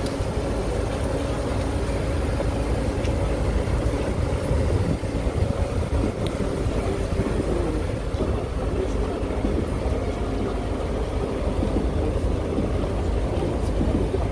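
Steady low rumble of a moving vehicle's engine with running noise, unbroken throughout.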